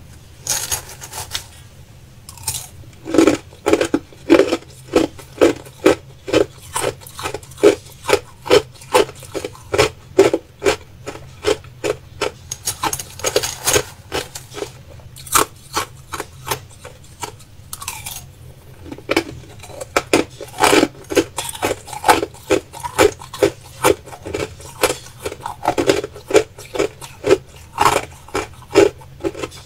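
Crushed clear ice being chewed close to the microphone: a steady run of sharp crunches, about two a second, with the odd scrape of a metal spoon in the ice.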